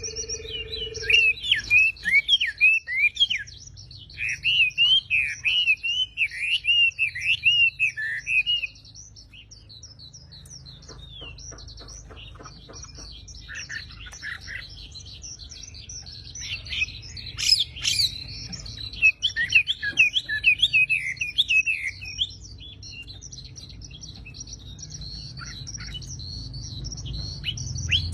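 Wambi songbird singing in fast runs of sharp chirps, the 'full tembakan' rapid-fire song of a bird in top singing form. There are two loud bouts, early and in the middle, with quieter twittering between them, and the song picks up again near the end.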